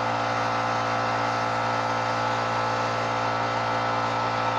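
Handheld propane torch burning steadily: an even, unbroken rush of flame with a constant hum underneath.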